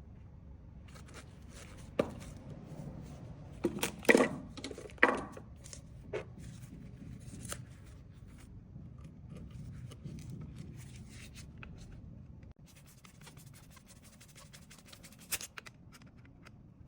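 Hand-work clicks, taps and scraping as an earth fly lead is fitted to a metal light switch plate: a few sharp clicks in the first half over low rustling, then softer handling with one more click near the end.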